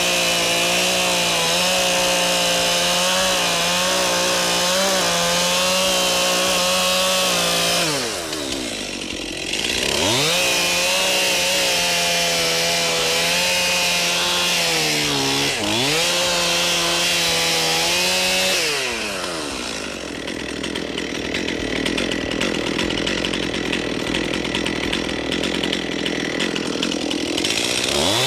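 Two-stroke chainsaw running at high revs. The revs drop and pick up again twice. Later comes a long stretch of rougher sound with no clear pitch before the high revs return near the end.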